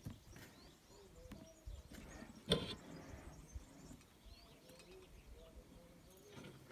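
Faint bird calls, short chirps and low arcing notes scattered throughout, with one sharp knock about two and a half seconds in. No bell is struck.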